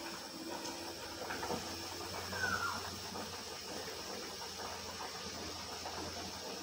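Steady hiss with a faint low hum underneath; a brief falling chirp-like sound about two and a half seconds in.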